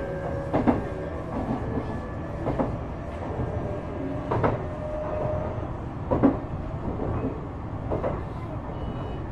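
Interior running noise of a Shizuoka Railway A3000 series electric train under way: a steady low rumble from the wheels and running gear, with knocks from the rail joints about every two seconds.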